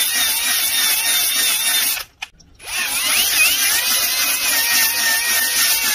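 Power drill spinning a 320-grit ball hone inside a Nikasil-plated motocross cylinder bore, stroked in and out to deglaze it and lay down cross-hatch marks: a steady whirring scrub with a wavering motor whine. It stops briefly about two seconds in, runs again, and stops at the end.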